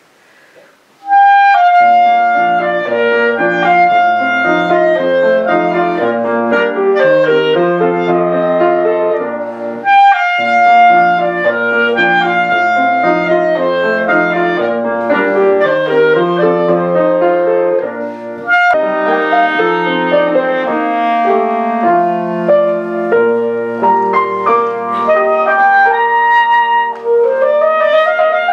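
Clarinet and Yamaha grand piano playing a duet: held clarinet melody over piano chords and bass notes. The music starts again after a short pause in the first second, has brief breaks about a third and two thirds of the way through, and climbs in a rising run near the end.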